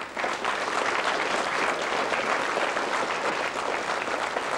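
Audience applause that breaks out suddenly, a dense, steady clapping of many hands.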